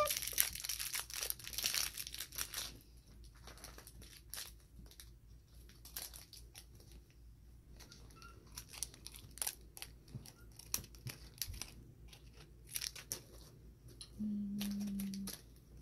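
Crinkly wrapper of an L.O.L. Surprise toy being torn open and crumpled, busy for the first couple of seconds, then scattered crackles and clicks as the layers are peeled. A short steady hum near the end.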